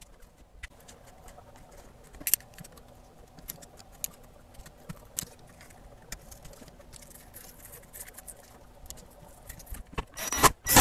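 Faint clicks and taps of small hand tools and wire connectors on a loudspeaker's wiring and cabinet, with one sharper click about two seconds in. Near the end a run of loud, evenly spaced sharp hits begins.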